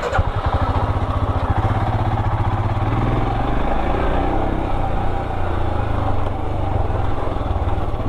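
Motorcycle engine running loudly and steadily, with a rapid, even chug of firing pulses.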